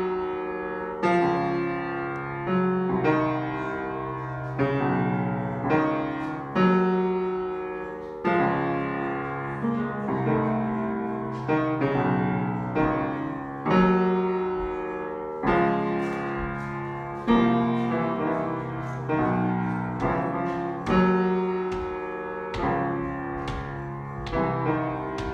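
Grand piano played four hands: a repeating riff of struck chords and notes, each attack ringing and fading before the next.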